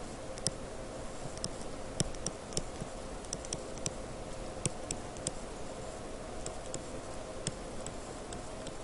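Stylus pen tapping and clicking on a tablet screen while handwriting, an irregular series of light ticks over a faint steady hum.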